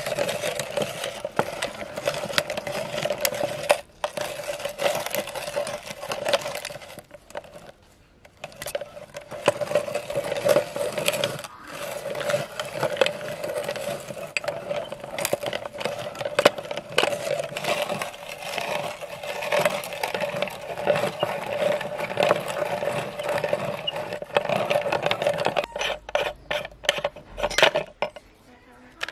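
Clamp-on metal meat grinder crushing hard lollipop candy: a continuous crunching and grating with many small sharp cracks, pausing briefly twice. Near the end it gives way to a few separate metal clicks and knocks as the grinder's ring nut and plate are handled.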